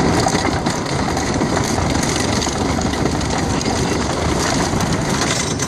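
Tornado wooden roller coaster train rolling and clattering along its track, heard from the front car: a steady loud rumble with a rapid rattle of wheels and track joints.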